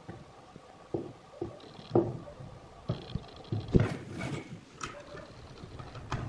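Irregular knocks, clicks and light scraping of hard parts being handled and set down, a few sharp thumps among them.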